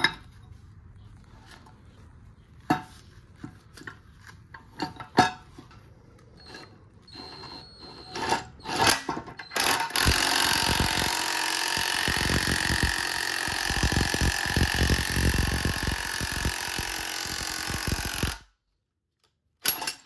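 Scattered metal clinks and taps, then about halfway through a Bauer impact wrench hammers steadily on the 22 mm jack screw of a ball joint press for about eight seconds before cutting off suddenly, pushing the old ball joint of a 1996–2000 Honda Civic part-way out.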